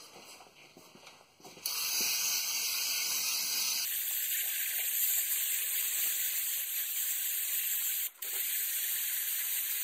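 Aerosol can of solvent spraying in a long steady hiss onto a transmission pan, starting a couple of seconds in, breaking off briefly near the end and then spraying again.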